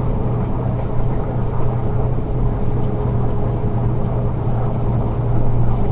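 Semi truck's diesel engine running steadily as the truck drives, a continuous low drone heard from inside the cab.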